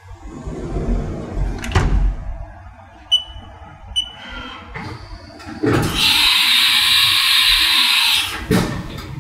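The sliding enclosure door of a Haas CNC mill rolls shut and closes with a thud, then the control keypad beeps twice. Next comes a loud steady hiss from inside the mill lasting about two and a half seconds, which ends in a clunk.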